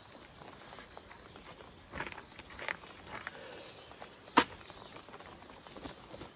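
An insect chirping: short, high chirps about four a second, in runs with short pauses. A few faint clicks sound over it, with one sharper tick about four seconds in.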